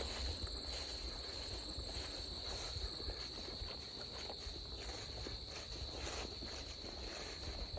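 Insects trilling in a steady, unbroken high chorus, over a low rumble and a few faint ticks.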